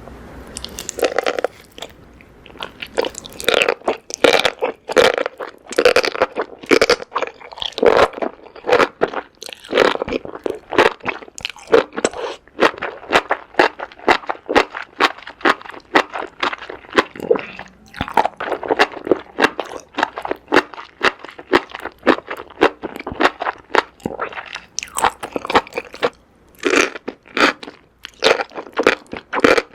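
Close-miked eating sounds: a person chewing food with crisp, crunchy bites in quick succession, several a second, pausing briefly twice.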